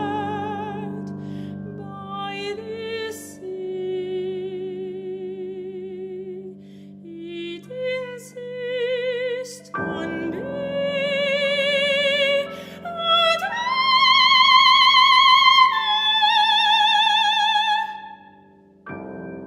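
A soprano sings wordless, sustained notes with wide vibrato over held electronic chords. A new chord comes in about halfway through, and the voice slides up to a loud, high held note before fading away near the end.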